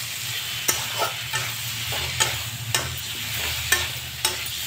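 Metal spatula stirring potato and onion pieces in a metal kadhai, knocking and scraping against the pan about twice a second over the low sizzle of the frying masala, with a steady low hum underneath.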